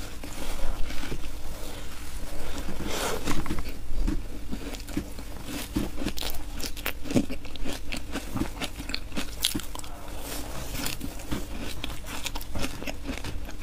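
A person biting and chewing frozen matcha shaved ice: a dense, irregular run of crunches as the ice cracks between the teeth.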